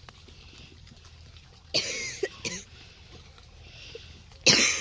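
Grey langurs giving short harsh calls in two bursts, the first about a second and a half in, the second, louder one near the end.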